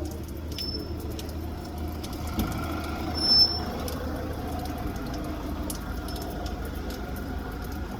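Steady low rumble of a vehicle engine or traffic, with a short, sharp high squeak about three and a half seconds in.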